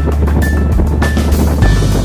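Background music with a steady beat, a deep bass line and a short high note repeating about every 0.6 seconds.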